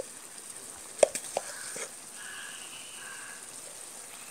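Chopped shallots and tomatoes frying in oil in a pan, a soft steady sizzle. A sharp knock about a second in, followed by a couple of lighter clicks.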